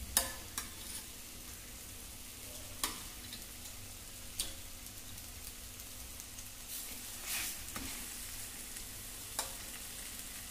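Mutton and thick masala sizzling in a clay pot, a steady soft hiss, with about half a dozen sharp clicks and knocks scattered through.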